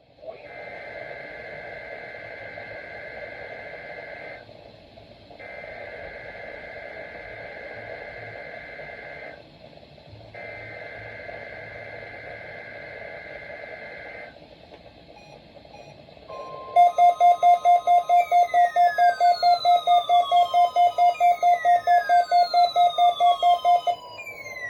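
Emergency Alert System weekly test: three bursts of warbling SAME digital header data with short pauses between them. About sixteen seconds in, a much louder attention signal starts: a steady tone, a fast pulsing beep about five times a second, and repeated falling siren-like sweeps.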